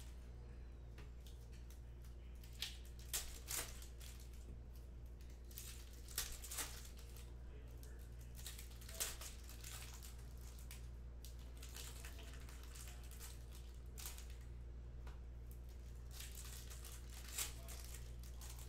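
Foil wrappers of Panini Hoops basketball card packs being torn open and crinkled by hand, in scattered short rips and rustles over a steady low hum.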